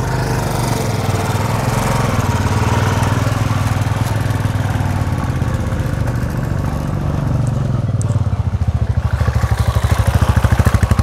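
Royal Enfield 350 single-cylinder motorcycle engines running at low speed on a rough dirt track. About eight seconds in, one bike's exhaust beat becomes a distinct, rapid, even thumping that grows louder as it comes close.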